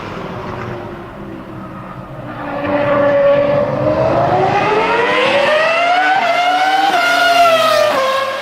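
Race car engine sound revving up, climbing steadily in pitch for several seconds, then dropping off sharply near the end.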